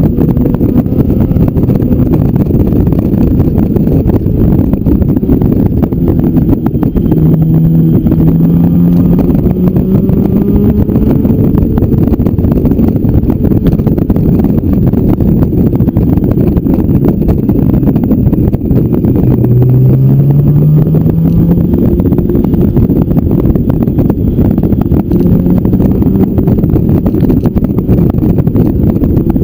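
Motorcycle riding on an open road, heard from an onboard camera: heavy wind buffeting on the microphone over the engine. The engine note rises twice under acceleration, about a quarter of the way in and again about two-thirds in.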